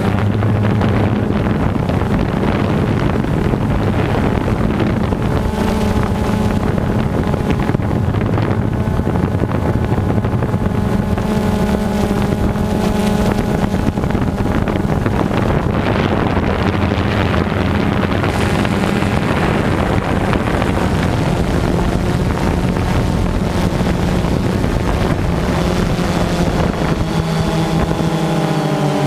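Quadcopter drone's motors and propellers buzzing steadily, with wind noise on the microphone. Near the end the pitch rises as the motors speed up.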